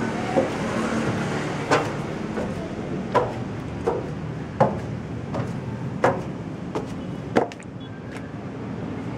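Footsteps climbing a steel staircase: about ten knocks on the metal treads at a walking pace, every other one louder and briefly ringing, stopping about 7.5 seconds in. A steady low hum runs underneath.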